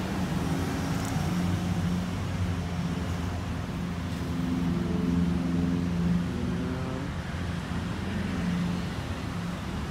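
Motor vehicle traffic: a steady low engine hum that swells a little about five seconds in.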